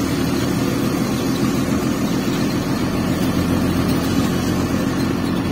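Bus engine running steadily with a low, even hum.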